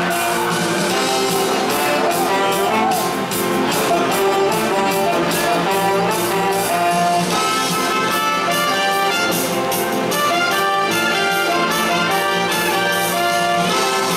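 Brass band playing an upbeat tune: saxophone, trombones and a tuba-type bass horn over a steady beat.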